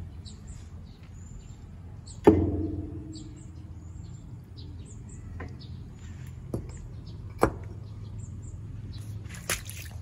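Jet ejector fitting and pipe parts being handled: one sharp knock with a short ringing about two seconds in, then a few lighter taps, over a steady low hum. Birds chirp briefly.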